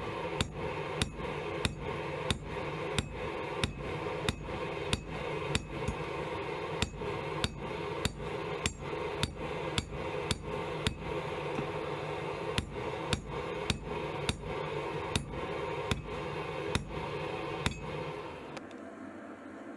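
Hammer blows on a red-hot steel knife blank lying on a railroad-rail anvil, about two a second, as the blade is forged out of a bolt. A steady rushing noise runs underneath, and the hammering stops near the end.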